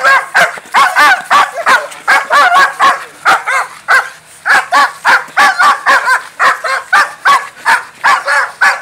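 Large dog barking rapidly and without pause, about three barks a second: aggressive barking at a stranger provoking it.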